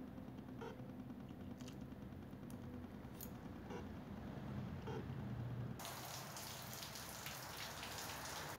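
A quiet stretch with a few faint clicks, then shower water spraying from an electric shower head, an even hiss that starts about six seconds in.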